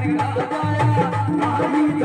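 Live Rajasthani folk devotional music: a dholak beats a steady rhythm under a sustained keyboard melody.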